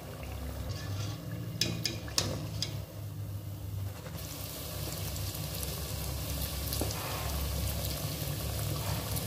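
A wire skimmer clinks a few times against the pot as fried pieces of Somali bur dough are lifted from the oil. Then, from about four seconds in, a fresh batch of dough sizzles steadily in hot oil.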